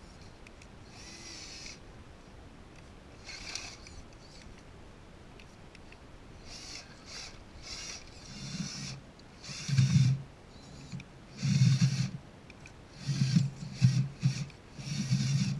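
Scale RC crawler truck's electric motor and geared drivetrain whirring in short bursts of throttle as it crawls over rocks. The bursts get louder, deeper and more frequent in the second half.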